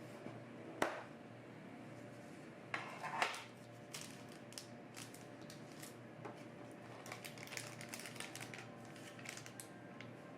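Light handling sounds of small hard objects. There is a sharp clatter about a second in, a louder cluster of clatters near three seconds, then a run of small quick clicks and taps.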